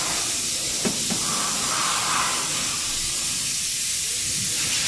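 Steady hiss throughout, with two light clicks about a second in as a thin metal pick works at the lock clip of a Fiat Ducato's concentric clutch release bearing.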